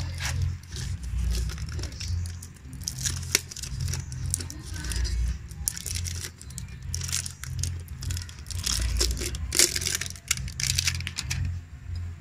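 Plastic wrapping being crinkled and torn off a new oil filter, in quick irregular crackles. Background music with a steady low beat runs underneath.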